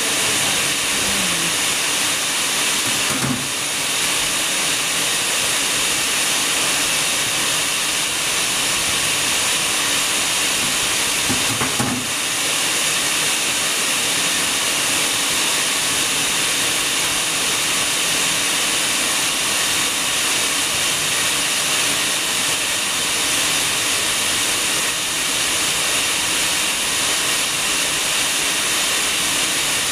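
A steady, even hiss, with faint brief knocks about three seconds in and again about twelve seconds in.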